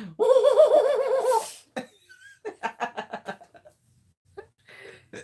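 A loud, wavering, high-pitched vocal note lasting about a second and a half, then laughter in short choppy bursts.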